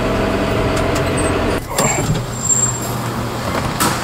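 John Deere 6420 tractor's diesel engine running as it pulls in. About halfway through it drops to a lower, steady idle, and a sharp click near the end comes as the cab door opens.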